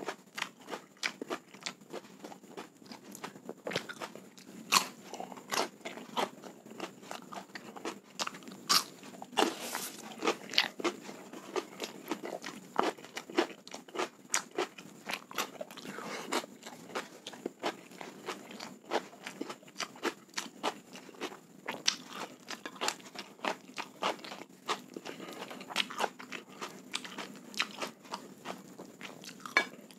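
Close-miked chewing and crunching as a mouthful of rice and chicken is eaten by hand, with irregular crisp crunches and wet mouth clicks coming several times a second.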